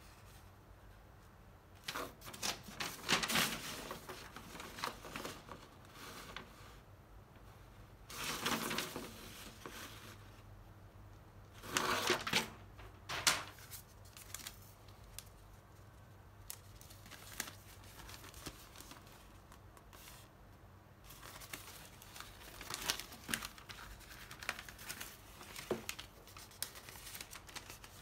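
Large paper instruction sheets and building plans being unfolded and handled, rustling and crinkling in irregular bursts with quieter pauses between.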